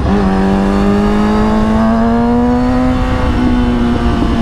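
Kawasaki ZX-6R 636 inline-four sportbike engine with a Mivv aftermarket exhaust pulling under throttle: revs dip sharply at the very start, as at a gear change, then climb steadily for about three seconds before levelling off and wavering. A steady low rush of wind runs underneath.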